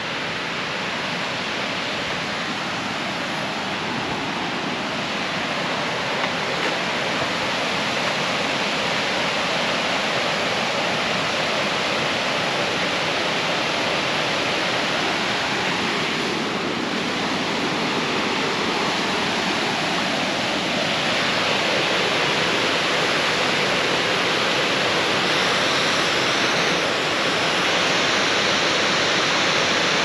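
Steady rushing of a waterfall, a little louder in the second half.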